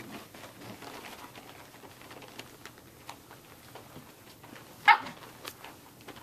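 Samoyed puppy giving one short, sharp yap about five seconds in, against faint scuffling and clicking of puppies at play.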